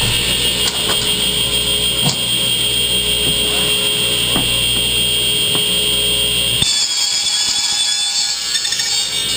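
A RIDGID power saw's motor running with a steady high whine as it cuts PVC pipe, with a few sharp clicks, cutting off suddenly about two-thirds of the way through.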